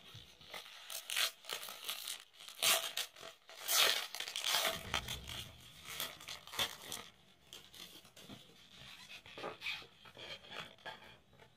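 Paper wrapper of a trading-card box-loader pack being torn open and handled: a run of irregular rips and rustles, loudest about four seconds in, growing quieter as the oversized card is drawn out.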